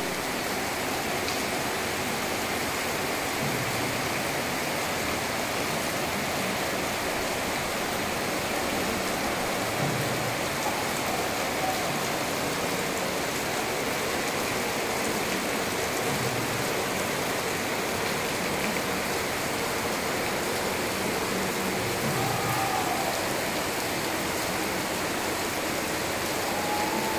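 Heavy rain pouring down steadily: a constant, even hiss of the downpour on the road, roof and trees.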